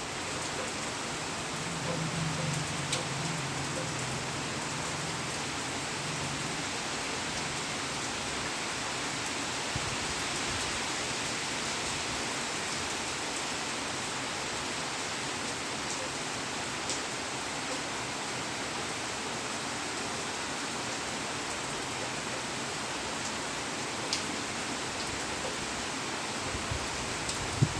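Heavy rain falling steadily, with a few sharper drop hits standing out now and then. A low hum sits under it for a few seconds near the start.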